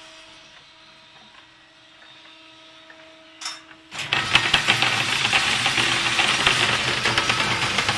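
Wet-cast concrete doser machine: a faint steady hum, then from about four seconds in a loud, continuous rattling clatter of the running machine.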